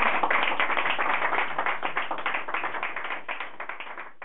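Audience applauding, the clapping fading away steadily toward the end.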